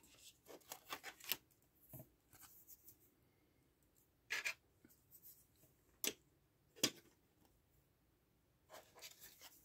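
Trading cards and hard plastic top loaders being handled: faint rubbing and sliding, with a few light clicks as top loaders are set down, the clearest about four and a half, six and seven seconds in.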